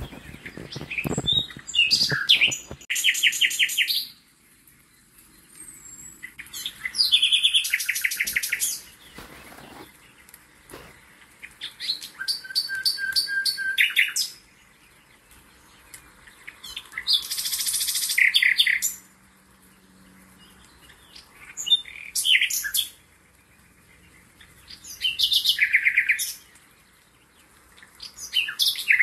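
A songbird singing: short phrases of rapid high trills and chirps, each one to two seconds long, repeated every four to five seconds.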